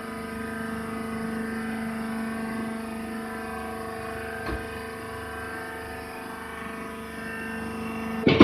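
Hydraulic rice husk baler running: its motor and hydraulic pump give a steady hum on one held pitch. A faint tick comes about four and a half seconds in, and a sharp loud clank right at the end.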